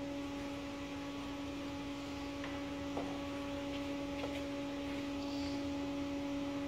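Steady electrical hum of a powered-up homemade CNC router at rest, with a few faint ticks.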